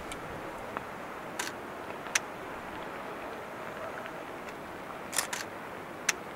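Distant fireworks: about five sharp bangs and cracks from ground fountains and small shells, scattered over a steady background hiss, with two bangs close together about five seconds in.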